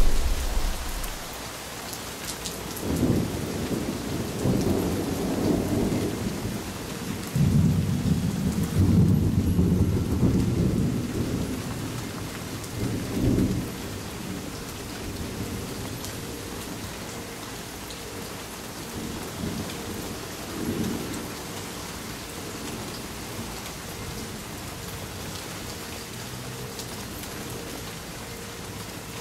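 Steady rain falling on a patio and garden plants, with rolling thunder. A loud rumble fades away at the start, several more rumbles swell and die over the next dozen seconds, and a last fainter pair comes about two-thirds of the way through.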